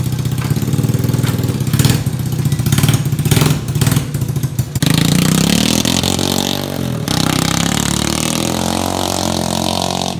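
Straight-piped 125 cc Tao Tao quad's single-cylinder engine running with no muffler: idling with several quick throttle blips, then revved up from about five seconds in, its pitch rising and falling before holding at higher revs.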